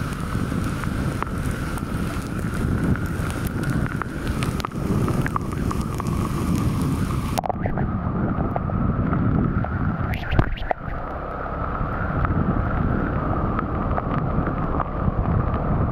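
Wind buffeting the microphone on the move, a steady rough rumble with a thin steady tone underneath, broken by a few sharp knocks about ten seconds in.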